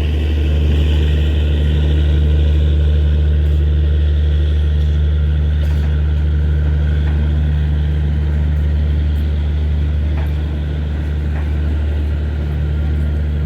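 WAP4 electric locomotive standing with its machinery running: a loud, steady low hum that holds without change.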